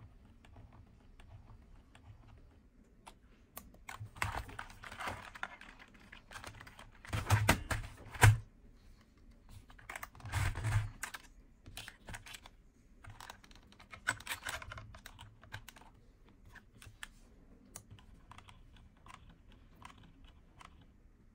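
Hands moving a plastic auto-clicker unit across a computer keyboard: irregular clacks, knocks and rubbing of plastic on the keys, in a few short bursts, the loudest about halfway through.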